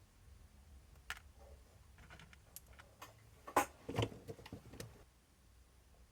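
Light clicks and taps of small RC shock parts being handled, with two louder knocks about three and a half and four seconds in.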